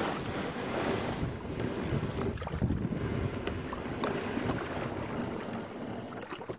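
Wind buffeting the microphone over water sloshing around a kayak on the move, with a few light knocks against the hull or gear.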